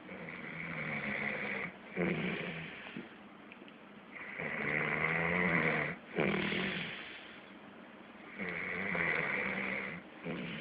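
A person snoring in a regular cycle, about one snore every four seconds: three long, loud snores, each followed by a shorter breath sound.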